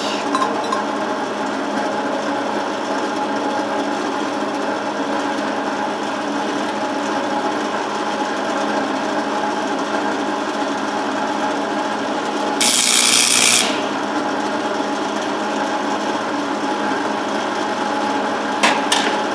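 Stick-welding arc with 6011 rod, crackling and buzzing steadily as a bead is run. A brighter hiss lasts about a second past the middle, and a few sharp clicks come near the end.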